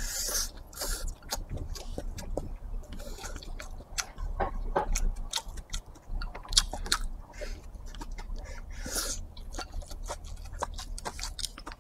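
Close-up chewing of a mouthful of rice with stir-fried dried tofu and pork: many small wet clicks and smacks, with a short breathy hiss as the food goes in at the very start and another about nine seconds in.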